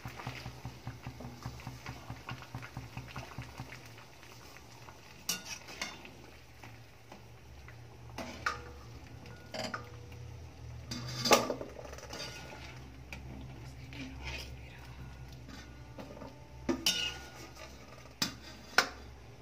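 Metal spoon clinking and scraping against a metal pot while boiled potato strips are scooped out of the water, with scattered sharp knocks, the loudest about halfway through and a few more near the end. A low steady hum runs underneath.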